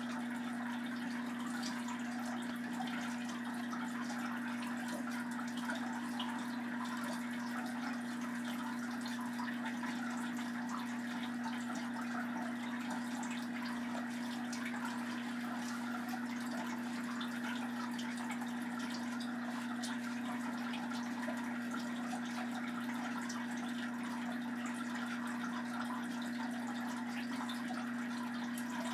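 Steady background hum with a constant low tone over an even hiss, unchanging throughout.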